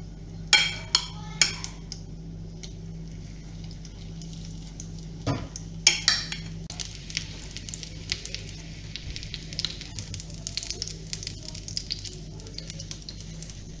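Chopped-chicken fritter batter frying in hot oil in a frying pan: a metal spoon clicks against the pan three times early on, two louder knocks come about five to six seconds in, and then the oil sizzles and spatters with many sharp crackles. A steady low hum runs underneath.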